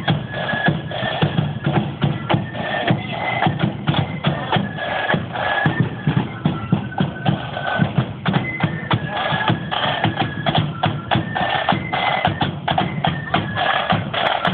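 Marching band playing a tune on the street: a high melody line over snare and bass drums beating a steady march time.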